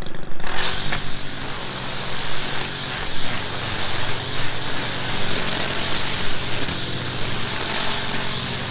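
Stihl FS 190 two-stroke string trimmer brought up to speed about half a second in, then running steadily at full throttle. Its spinning line cutting through weeds and grass makes a strong, steady high hiss over the engine's drone.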